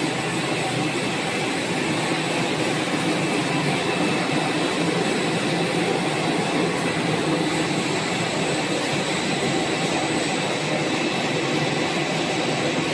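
Steady mechanical roar of a cable extrusion line running in production, the drive motors, blowers and cooling equipment together, with a few faint, steady high-pitched whines.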